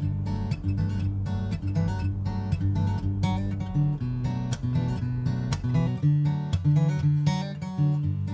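Background acoustic guitar instrumental, notes plucked and strummed in a steady rhythm.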